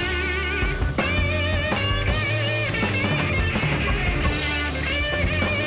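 Rock music with an electric guitar playing a lead of wavering, bent notes over a low bass.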